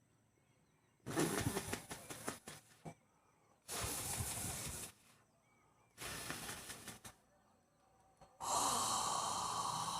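A man's deep breaths in a yawning breathing exercise: four long, noisy breaths with pauses between them. The last is the longest and loudest, at about two seconds.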